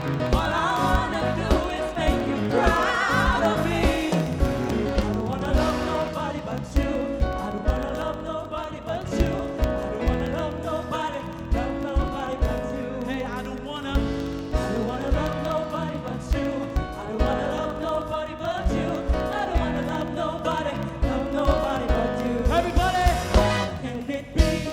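Gospel band playing live, with voices singing gliding, wordless runs over the band and drum hits.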